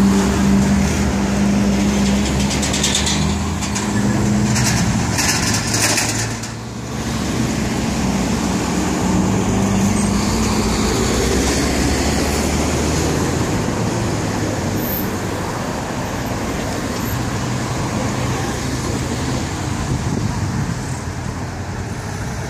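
Road traffic with heavy trucks: a diesel engine drones at a steady pitch for the first few seconds and fades, then passing cars and trucks give a steady rumble of engines and tyres.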